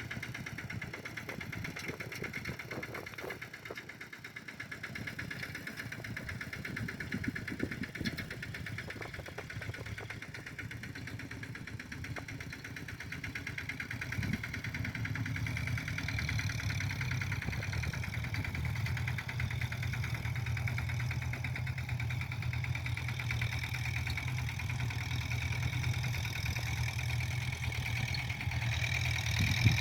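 Kubota M7040 tractor's diesel engine running steadily while ploughing a paddy field, getting louder about halfway through.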